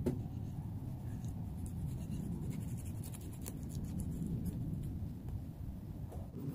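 Kitchen knife scraping and slicing through the spongy flesh of a lion's mane mushroom: soft scratching with scattered small clicks, over a steady low rumble.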